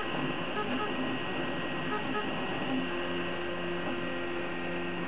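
Prusa i3 3D printer printing: its stepper motors sing in short pitched tones that change pitch every fraction of a second as the print head and bed move, over a steady hiss of cooling fans.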